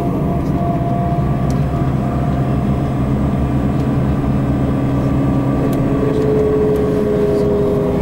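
Engine and road noise heard from inside a moving vehicle: a steady low drone with a held engine tone.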